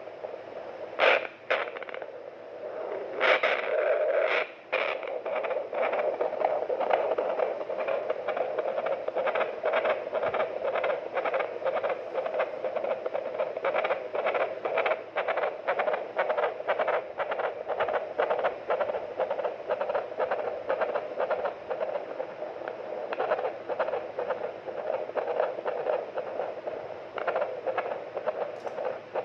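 Fetal Doppler monitor playing a baby's heartbeat through its speaker: rapid, rhythmic whooshing beats over a hiss of static, with a few louder scrapes and crackles in the first few seconds. The heart rate is one the doctor judges normal, within 110 to 160 beats a minute.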